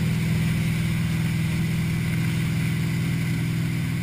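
Malibu Wakesetter wake boat's inboard engine running steadily under way, with the rush of its churning wake water.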